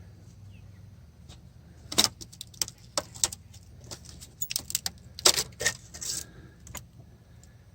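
Loose metal engine valvetrain parts, such as lifters, clinking and clanking against each other as they are handled. It is a string of sharp metallic clicks from about two seconds in until near the end.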